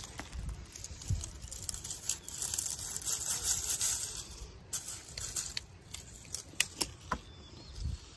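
Rustling of dry leaves and forest litter as morel mushrooms are cut from the ground with a knife and handled into a plastic bucket, with a few sharp clicks in the second half.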